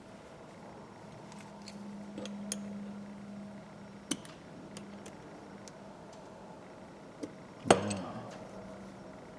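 Small metal parts and hand tools clicking and tapping while a 1/4-inch ratchet is worked on by hand, with one sharp metallic clink and a brief ring near the end.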